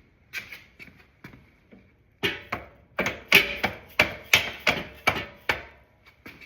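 Hammer blows on the motorcycle's engine-mount rod, driving it back into place. A few light taps come first, then a run of about ten harder strikes, roughly three a second, for about three seconds.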